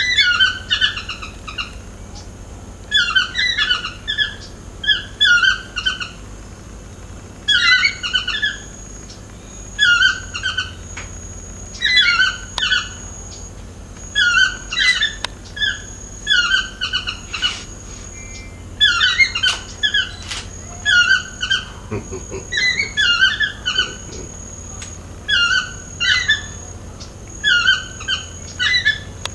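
Yellow-throated toucan calling: repeated yelping phrases of two or three notes, one phrase about every two seconds. A steady high thin whine runs under most of it.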